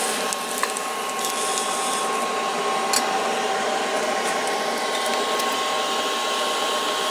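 Hair dryer blowing air into a charcoal grill forge as its blower: a steady whirring with a steady whine, and a small click about three seconds in.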